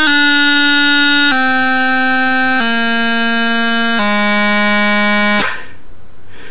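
Bagpipe practice chanter playing a descending scale: four steady held notes, each a step lower than the last, about a second and a half apart. The playing stops shortly before the end.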